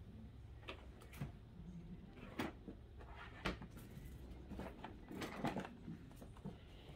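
Faint handling noise: a handful of scattered soft clicks and knocks, with some rustling about five seconds in.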